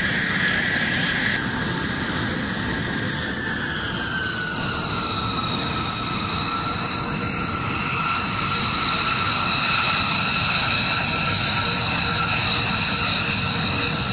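B-2 Spirit stealth bomber's four General Electric F118 turbofan engines running at taxi power: a high whine over a steady rumble. The whine drops in pitch about four to five seconds in as the bomber rolls past, then holds steady.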